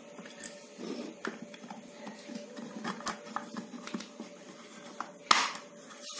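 Plastic housing of a hot air gun being handled and fitted back together: light plastic clicks and taps, with one louder knock a little past five seconds in.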